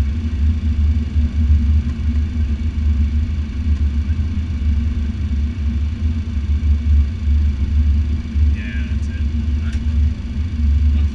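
Steady, deep rumble of airflow and jet engines inside the cockpit of a Cessna Citation X business jet in flight on approach.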